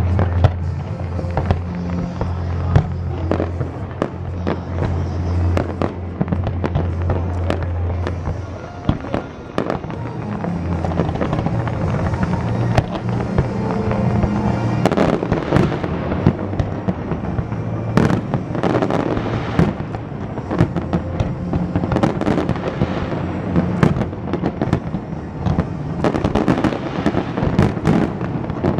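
Aerial fireworks bursting and crackling in a steady run of bangs that grows denser and faster in the second half, over a music soundtrack with a steady bass.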